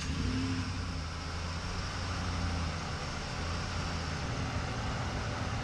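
Dodge Ram 1500's 4.7-litre Magnum V8 idling, a steady even hum, its idle smooth now that a cracked PCV hose has been replaced.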